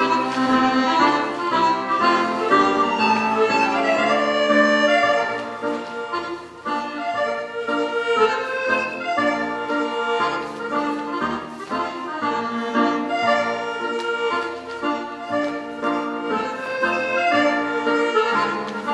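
Recorded Scottish country dance music in strathspey time, played on accordion with piano accompaniment, dipping briefly in level about six seconds in.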